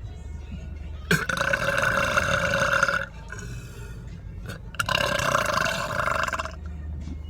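A person belching twice, two long drawn-out burps of about two seconds each, with a pause of under two seconds between them.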